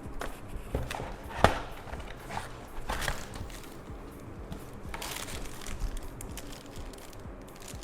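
Keyboard packaging being handled: rustling and crinkling with scattered light taps, and one sharp knock about a second and a half in.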